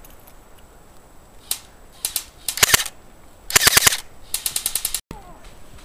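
ICS L86 electric airsoft rifle firing: a single shot, a quick pair, then three short rapid full-auto bursts, each about half a second long. The sound cuts off abruptly near the end.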